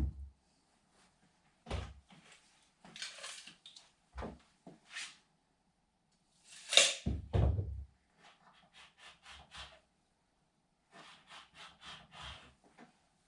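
Hard objects being handled and set down: scattered knocks and thumps, the loudest a sharp clatter followed by heavy thuds about seven seconds in, with two runs of quick light ticks later on.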